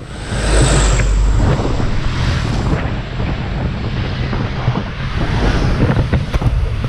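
Wind buffeting an action camera's microphone held out of the window of a moving minivan, a loud rushing noise with heavy low-end flutter.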